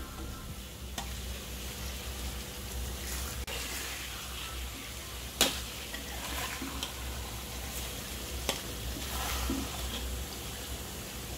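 Catfish pieces frying in oil in a wok with a steady sizzle, while a metal spatula stirs and turns them, knocking against the wok a few times. The loudest knock comes about five and a half seconds in.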